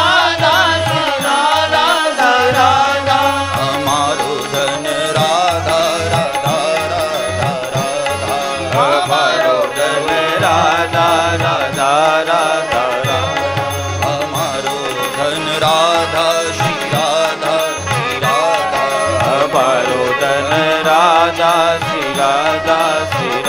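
Hindi devotional bhajan music: a wavering melodic line over a low, repeating drum beat.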